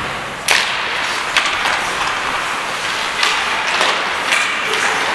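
Ice hockey skates scraping and cutting the ice, with several sharp strokes standing out over a steady hiss; the first, about half a second in, is the loudest.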